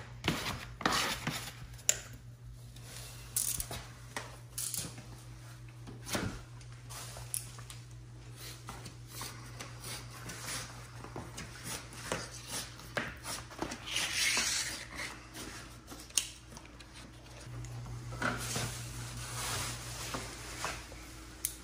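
Cork wallpaper being smoothed onto a wall by hand to work out the air pockets: scattered light taps and clicks and a few longer rubbing sounds. A steady low hum runs underneath.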